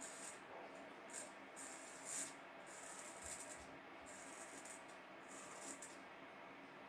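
Wilkinson Pall Mall razor's single-edge blade scraping through facial stubble in a series of short, faint strokes.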